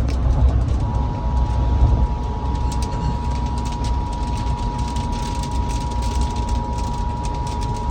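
The Emergency Alert System two-tone attention signal, a steady dual tone near 1 kHz, comes in about a second in and holds, played over FM radio. Under it runs a steady low vehicle rumble, which is louder than the tone.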